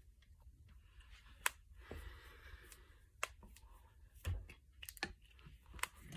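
Finger knuckles cracking: a series of sharp, separate pops, about six over several seconds, the loudest a little over a second in and a few in quick succession near the end.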